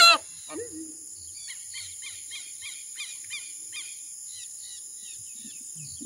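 A horned screamer's loud, honking call ends about half a second in. It is followed by a run of quieter high chirps, about three a second, over a steady high insect hiss.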